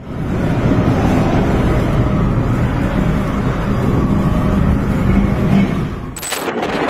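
Storm wind blowing hard against a phone microphone: a loud, dense, low rumbling rush. About six seconds in it breaks off suddenly, with a short crackle, into a thinner rushing noise.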